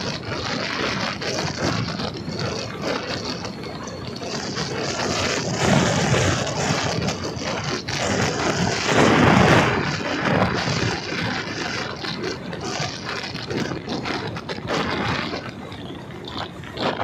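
Motorcycle riding along a road: a steady rush of wind and engine noise that swells loudest about nine seconds in.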